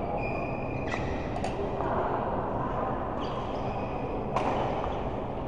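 Indoor court doubles play: a few sharp racket hits, about a second in, again half a second later and near the end, with short shoe squeaks over a steady hall noise.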